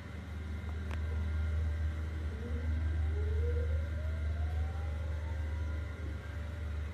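A motor speeding up, its whine rising steadily in pitch over a strong low hum, after a sharp click about a second in.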